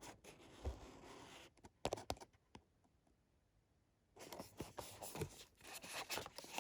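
Faint rustling and a few light clicks from a perfume box and its packaging being handled during unboxing. The sounds come in two spells with a quiet gap in the middle.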